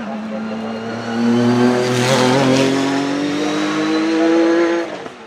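Porsche 911 GT1 race car's twin-turbo flat-six under hard acceleration, its engine note climbing steadily in pitch and growing louder about a second in as the car passes, then falling away near the end.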